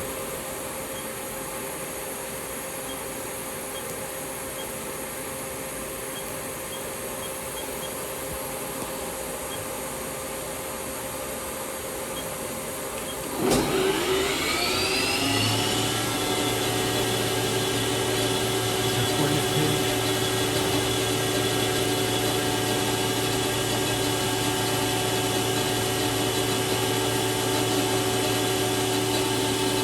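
1998 Haas HL-6 CNC lathe with its 30 HP spindle motor. Steady machine hum, then about halfway through a sharp click and a rising whine as the spindle spins up over two or three seconds. It then runs on at a steady, louder speed.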